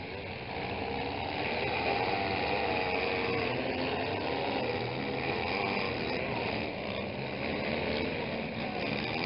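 Several small-car demolition derby engines running and revving at once, their pitch wavering up and down.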